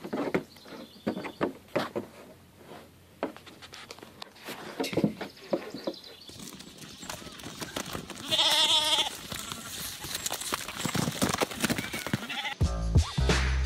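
Goat hooves clicking on a plastic cooler lid, then a goat bleats once, a wavering call of about a second.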